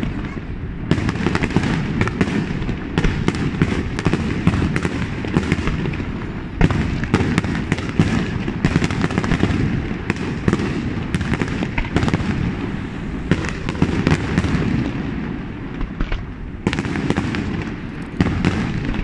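Aerial firework shells bursting in a rapid barrage, sharp bangs and crackles many times a second over a constant low rumble. The bangs thin out briefly about three-quarters of the way through, then come thick again.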